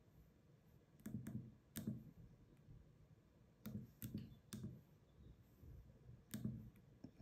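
Faint clicks of a SwissMicros DM42 calculator's keys being pressed one at a time, about seven presses at an uneven pace, each with a soft low thud.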